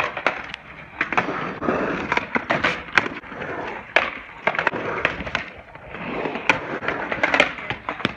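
Skateboard on a concrete ramp: the wheels rolling on the concrete, broken by many sharp clacks of the board and trucks hitting the concrete and the coping.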